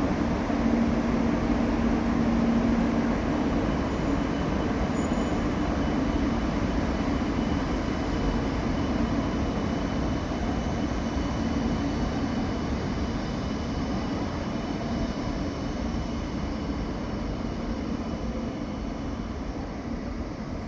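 JR East E2 series Shinkansen train pulling out of the station, a steady rushing rail noise that slowly fades as it draws away. A low hum is heard in the first three seconds and then dies out.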